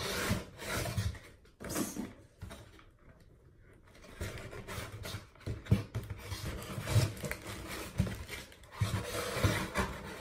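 Cardboard box and packaging inserts being handled as candle jars are packed back in: irregular rubbing and scraping with soft knocks, easing off briefly about three seconds in.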